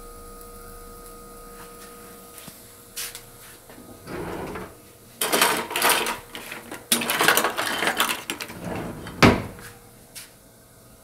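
Kitchen handling noises: irregular rustling, scraping and knocking as things are moved about at the sink, with a sharp knock near the end. A faint steady hum is heard before them.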